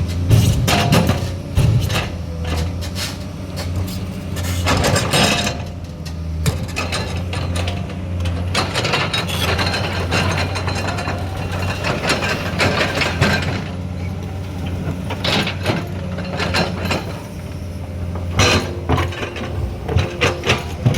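Excavator's diesel engine running steadily, with repeated knocks and clatter on top of it.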